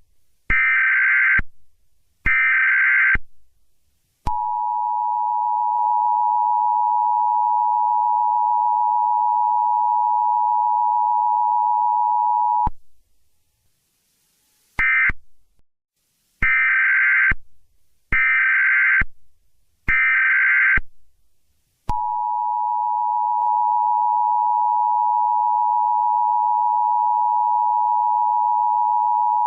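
Emergency Alert System tones. Two harsh digital data bursts of about a second each, then the steady two-tone attention signal for about eight seconds. After a short silence come a brief burst and three more data bursts, then the attention signal starts again.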